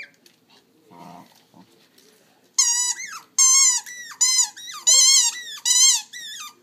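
Small white terrier biting a yellow rubber squeaky toy, squeezing out a quick run of about six high, wavering squeaks starting about two and a half seconds in.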